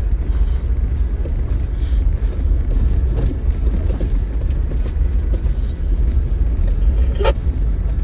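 Cabin noise of a 4x4 driving slowly over a rutted dirt trail: a steady low rumble of engine and tyres with faint knocks and rattles from the body and suspension. A brief higher-pitched squeak comes about seven seconds in.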